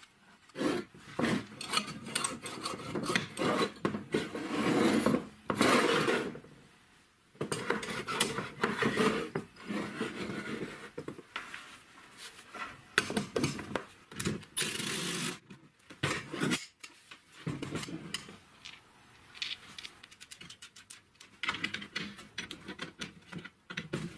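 Irregular clattering, scraping and rubbing of plastic and metal parts as a homemade PVC dust shroud is handled and fitted onto an angle grinder, with a wrench working a nut near the end. The grinder is not running.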